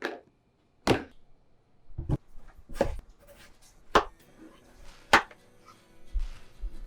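A kitchen knife chopping through watermelon onto a cutting board: about six separate crisp strokes, roughly one a second.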